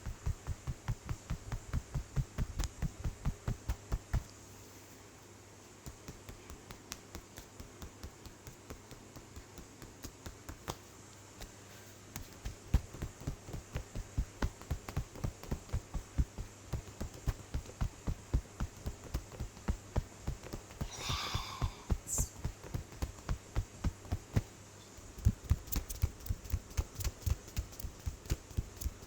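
Hands tapping rapidly in a percussive head massage: even, soft thumps about five a second, with a brief pause a few seconds in.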